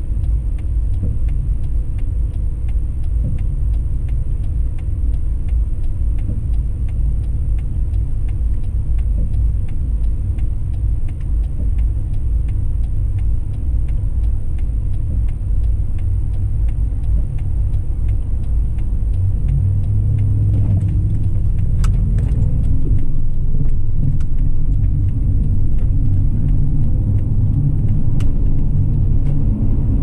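Car being driven: a steady low rumble of road and engine noise that grows a little louder about two-thirds of the way through, with a couple of faint clicks near the end.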